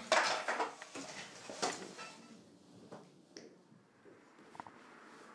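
A few short, sharp clicks and knocks, bunched in the first two seconds with one or two more later, then quiet room tone.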